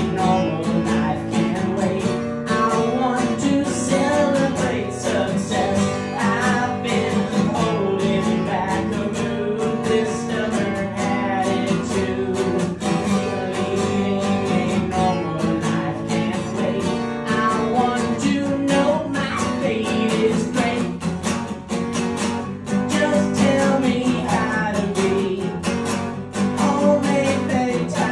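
Acoustic guitar strummed steadily, with a man singing over it in a live solo performance.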